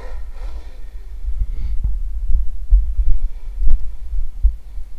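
Low rumble and irregular low thumps of handling noise on the camera microphone as the camera is swung around. A faint electric-motor whine from the RC snowmobile fades out in the first half second.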